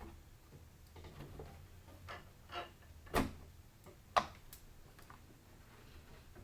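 A string of light clicks and knocks from PC parts being handled during assembly, with two louder sharp knocks about a second apart past the middle.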